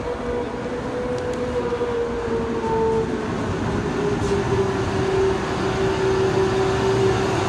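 Korail KTX high-speed train moving along the platform, a steady rumble with a whine that drops slightly in pitch over the first few seconds and then holds.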